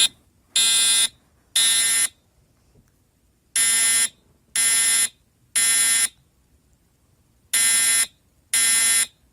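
Voice-evacuation fire alarm system sounding the temporal-three evacuation tone: three harsh half-second blasts about a second apart, a short pause, then the next three, repeating.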